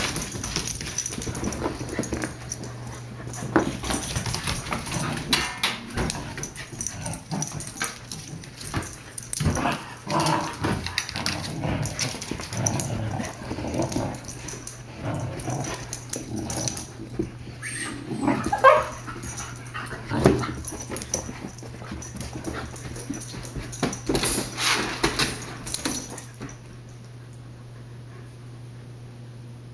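Puppies play-fighting: irregular bursts of growls, whimpers and yips with scuffling and claws on the floor, over a steady low hum. The scuffle stops about 26 seconds in, leaving only the hum.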